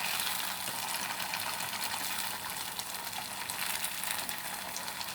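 Strips of tofu skin frying in hot oil: a steady sizzle with faint, scattered crackles.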